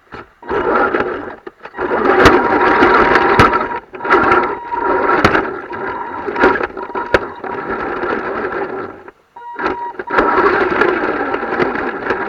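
Radio-controlled model truck's electric motor and gearbox whirring in throttle bursts, with a steady whine, as it is driven over rough ground. There are four bursts, separated by brief pauses.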